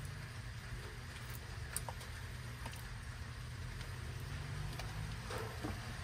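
Heavy rain pouring outside, heard as a steady low rumble with a faint hiss and a few light ticks.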